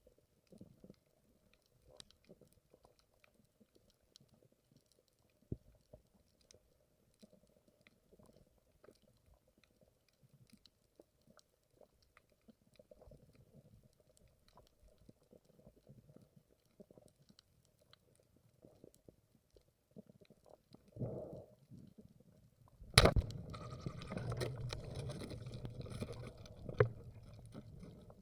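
Underwater ambience with a faint low rumble and scattered crackling clicks. Near the end a single sharp loud crack is followed by several seconds of rushing, bubbling water noise.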